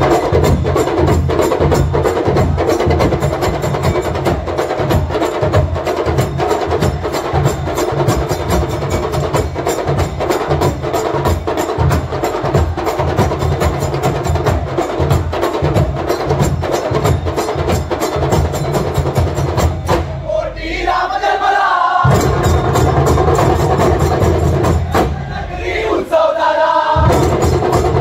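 Folk drum and cymbal ensemble playing a fast, steady beat of sharp strikes. The drumming breaks off twice briefly near the end, with a short wavering pitched sound in each pause before the beat resumes.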